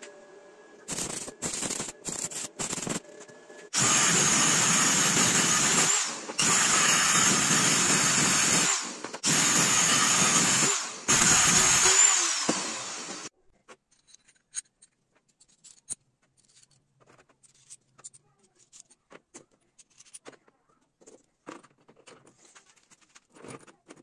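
Handheld power tool working steel nuts and bolt clamped in a bench vise: a few short blips, then four steady bursts of about two seconds each. It winds down about twelve seconds in, leaving only faint clicks of handling.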